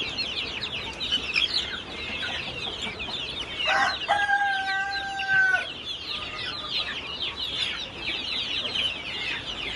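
A flock of young chickens in a wire cage peeping continuously with many short, high, falling chirps. About four seconds in, a rooster crows once, a single held call of under two seconds.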